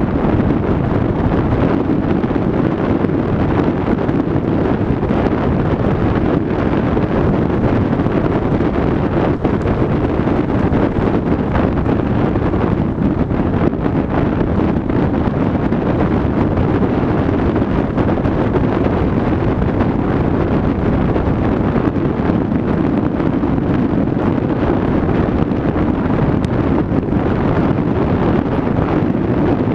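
Steady wind rushing over the microphone of a camera mounted on a moving pickup truck, with the truck's road noise underneath.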